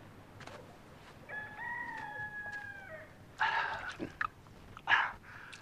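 A rooster crows once, a call of nearly two seconds that falls slightly at its end. It is followed by two short, louder sounds about a second and a half apart.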